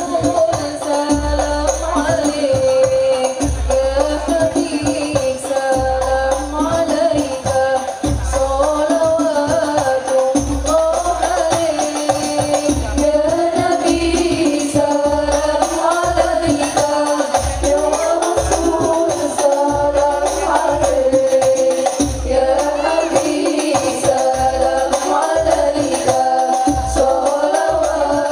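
A group of voices singing an Islamic devotional song together, accompanied by rebana frame drums with jingles, whose deep low strokes keep a rhythm under the melody.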